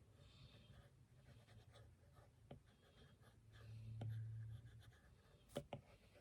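Faint scratching of drawing strokes, with a few light taps, two close together near the end. A low hum swells briefly about four seconds in.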